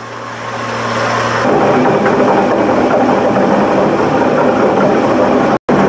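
Motor-driven spice-processing machine running with a steady mechanical hum, growing louder and rougher about a second and a half in, then running evenly; it cuts out for an instant near the end.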